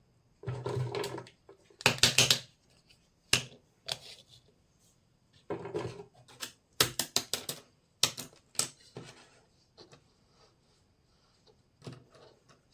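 Small plastic toy kitchen pieces being handled and set down: irregular clusters of sharp clicks and clacks. The loudest clatter comes about two seconds in, and a quick run of clicks follows around the middle.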